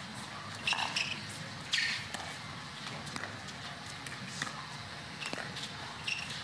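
Pickleball paddles hitting a plastic pickleball in a rally at the net: about half a dozen sharp pops at uneven intervals, over a steady low murmur from the crowd.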